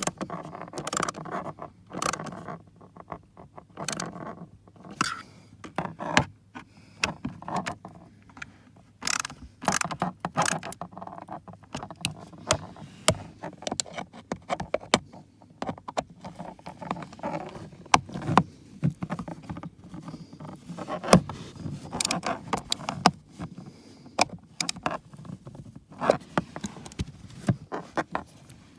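Irregular clicks, knocks and scrapes of hand tools and metal and plastic parts being worked on, as when unscrewing and handling a truck's blower motor and its fasteners.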